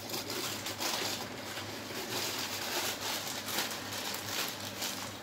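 Plastic snack and sweet wrappers rustling and crinkling as packets are handled and gathered on a shop counter, in irregular short bursts, over a steady low hum.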